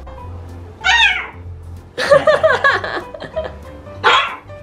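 Toy poodle making strange high-pitched whining yowls, cat-like cries from over-excitement: one about a second in that falls in pitch, a louder run of cries around two seconds in, and another near the end.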